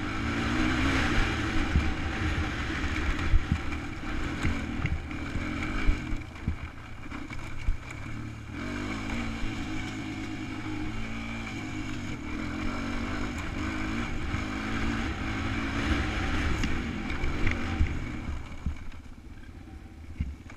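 ATV engine running while the quad rides over a rough dirt trail, its pitch stepping up and down with the throttle, with sharp knocks from bumps. It drops to a quieter idle near the end as the quad stops.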